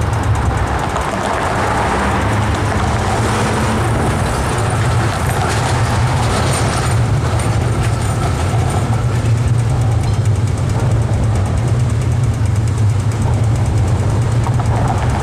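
Melbourne B2-class articulated tram running past across a street junction over a steady low rumble of city traffic. A run of clicks about a third of the way in fits its wheels crossing the junction's rail crossings.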